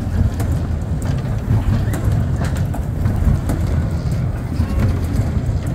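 Kiddie race-car ride spinning: a steady low rumble of the small cars running round on the deck, with scattered clicks and knocks.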